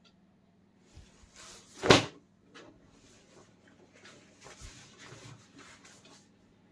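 Denim jeans handled on a tabletop: a loud flap of the fabric about two seconds in, then softer rustling and brushing as the jeans are spread flat.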